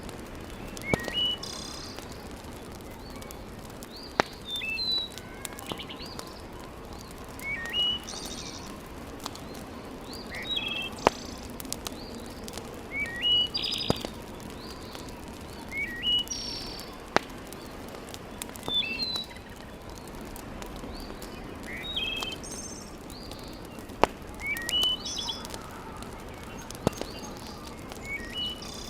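Wood fire crackling steadily in a fireplace, with sharp pops every few seconds. Throughout, a bird repeats a short, quick chirping phrase every two to three seconds.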